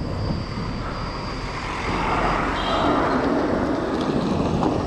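Wind rushing over the microphone while riding a bicycle, with a motor vehicle passing close by: its engine and tyre noise swells about two seconds in and falls in pitch as it goes.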